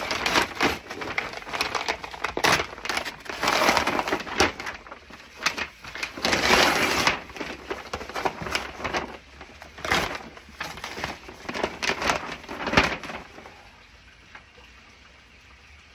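Brown kraft-paper wrapping being slit with a small knife and torn open by hand, crackling and rustling in irregular bursts. The longest tears come about four and seven seconds in, and the noise dies down shortly before the end.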